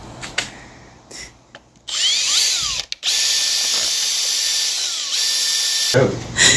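Cordless drill boring a twist bit into a metal plate clamped in a vise. The motor spins up about two seconds in, stops briefly, then runs steadily for about three more seconds before cutting off.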